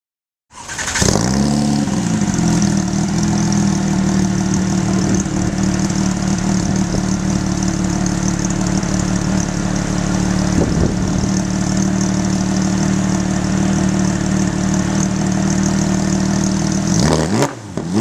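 Porsche 911 GT3 RS 4.0's naturally aspirated 4.0-litre flat-six, through a Tubi Style exhaust with its valves open, starting with a brief flare and then idling steadily. Near the end it is blipped, the revs rising and falling.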